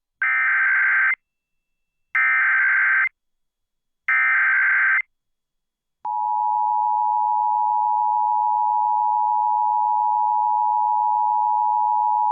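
Emergency Alert System tones announcing a Child Abduction Emergency (AMBER Alert). First come three evenly spaced bursts of digital SAME header data, each about a second long. About a second after the last burst, the steady two-tone EAS attention signal starts abruptly and holds.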